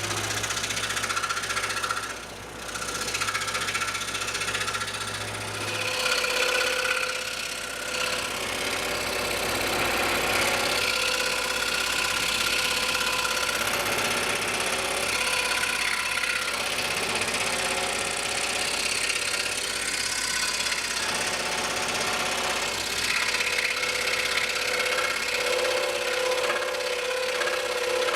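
Scroll saw running steadily, its reciprocating blade cutting through a thick maple block. A low hum underneath drops away about six seconds in.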